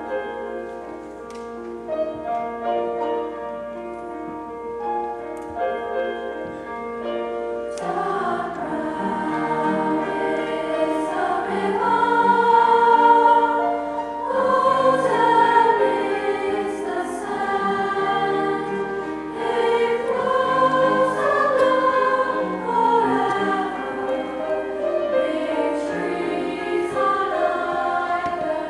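A short instrumental introduction of steady, separate notes, then a girls' choir comes in about eight seconds in, singing in harmony over the accompaniment and growing fuller and louder.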